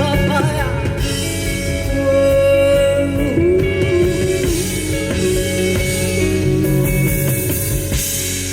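Live rock band playing an instrumental passage of held chords with electric guitar, one note bending in pitch about three seconds in.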